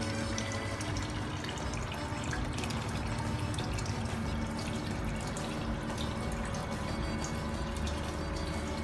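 Water from a filter outlet pouring and splashing steadily into a plastic fish tub.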